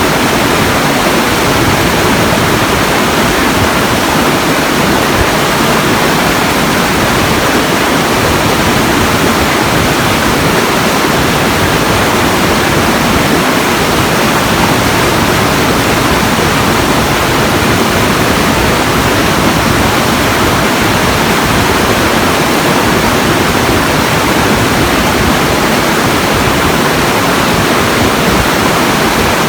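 Loud, steady rushing noise, even across low and high pitches and unchanging throughout, with no distinct events.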